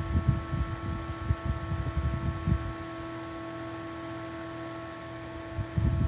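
Personal evaporative air cooler's small fan motor running with a steady hum of several fixed tones. Irregular low rumbling comes and goes over it, dying away after about three seconds and returning near the end.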